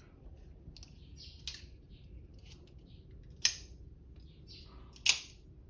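Microtech Ultratech double-action out-the-front knife snapping its blade out and back: two sharp snaps about a second and a half apart, with softer handling noises before them.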